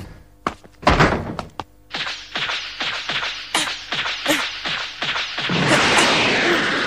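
Anime sound effects: a couple of thuds, then a quick run of hits, about three a second, each with a falling tone. About five and a half seconds in they give way to a steady rushing noise of a Super Saiyan's glowing energy aura.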